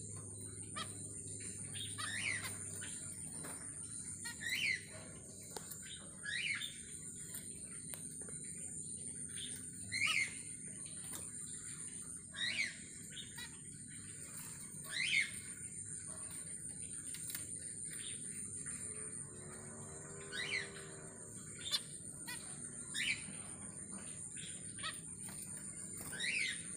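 Zebra finches giving short single calls every two to three seconds, over a steady high-pitched trill.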